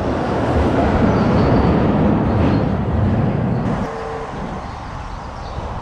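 A heavy vehicle passing close by: a loud low rumble that swells and then drops off sharply a little before four seconds in.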